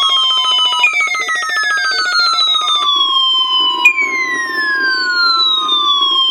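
Electronic alarm tone that slides down in pitch and jumps back up about every three seconds. A rapid pulsing buzz runs under it and stops about three seconds in, after which a steady high tone holds.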